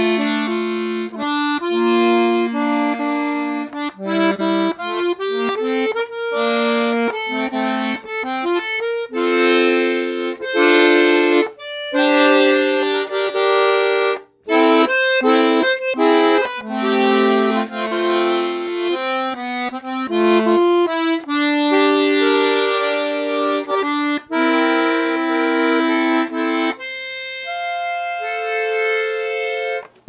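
Parrot Cassowary 34-key piano accordion with a single treble reed and no bass side, played right hand only: a tune of changing notes on the keyboard, with one brief break about halfway through.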